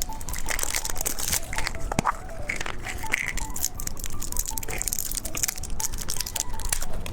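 Plastic candy packaging crinkling and tearing as a surprise-egg candy is unwrapped, with many quick crackles.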